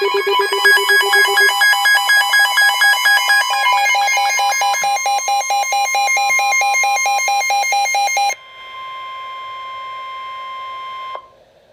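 Emergency alert receiver sounding its electronic alarm tones before a severe thunderstorm warning: a rapid, pulsing multi-tone beeping that changes pattern about four seconds in. After about eight seconds it gives way to a steadier tone for about three seconds, which cuts off suddenly near the end.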